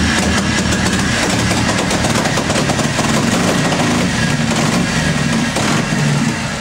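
1944 Harley-Davidson WLC's 45 cubic inch flathead V-twin running steadily on its first start, a couple of seconds after catching, its revs wavering slightly.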